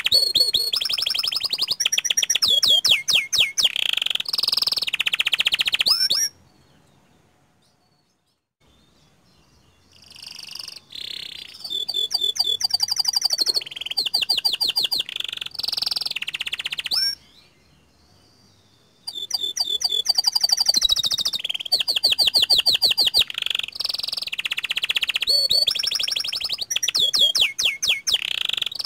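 Domestic canary singing a long, loud song of rapid rolling trills and sustained phrases, breaking off twice into brief silences.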